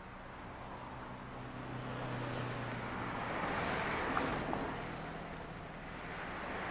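A bus driving past close by: its noise swells to a peak about four seconds in and then fades, over a low engine hum in the first few seconds.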